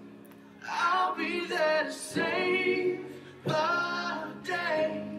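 A song with singing voices, sung in short phrases with brief gaps between them.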